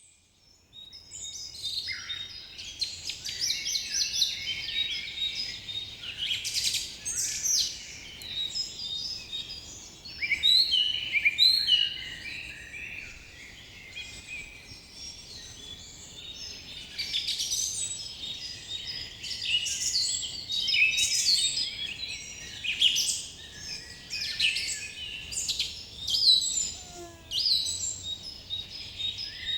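A chorus of several songbirds chirping and singing, many short high calls overlapping one another without a break.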